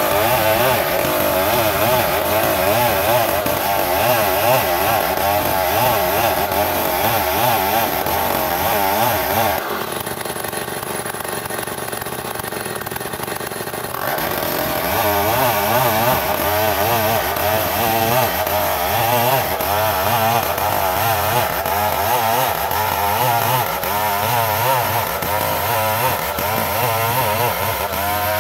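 Chainsaw ripping lengthwise through a beam of ulin (Bornean ironwood), the engine held high under load with its pitch wavering as the chain bites. About ten seconds in the engine drops back for a few seconds, then picks up again and carries on cutting.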